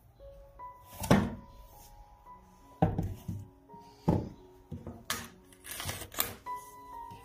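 Soft background music with held notes, over which the handling of a shrink-wrapped stretched canvas is heard: a sharp thump about a second in, then several more knocks and scissors cutting the plastic wrap.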